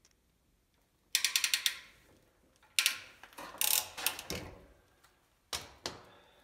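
Hand tools working on the water pump's fittings during reassembly: a fast run of about ten ratchet-like clicks just after a second in, then several louder knocks and rattles.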